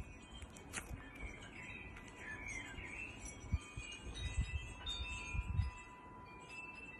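Thick butter slime squeezed in a hand, giving a few soft, low squelches about halfway through, while wind chimes ring with long, steady tones.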